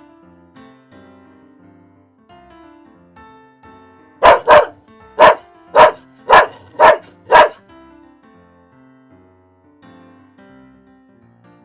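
A dog barking seven times in quick succession, about four seconds in, over soft piano background music.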